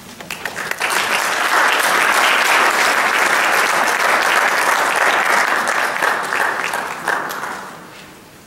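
Audience applauding: the clapping builds up over the first second or so, holds steady, then dies away near the end.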